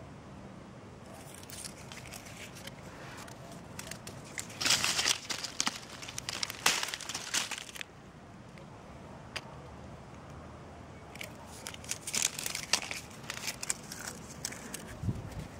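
Dry, dead citrus leaves and twigs crackling and rustling in irregular crisp bursts, strongest around the middle and again in the last few seconds.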